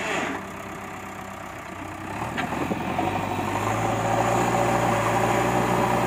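JCB 3DX backhoe loader's diesel engine running, its revs rising about two to three seconds in and then holding at a steady, louder pitch as the front loader bucket is worked.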